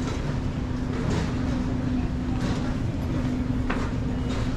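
Busy transit-station concourse ambience: a steady low rumble with a constant hum, and a few brief scuffs and clicks spread through it.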